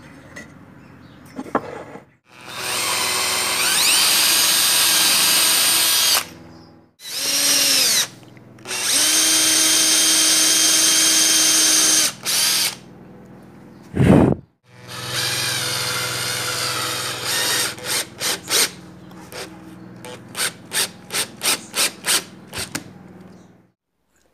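Power drill boring holes into Australian oak, running in several steady runs of a few seconds each, with a loud knock about midway; near the end the drill is pulsed in short quick bursts, about two a second.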